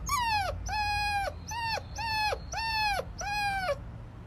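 Young puppy whimper-howling: a string of about seven high-pitched cries, longer drawn-out ones alternating with short ones, each dropping in pitch at its end.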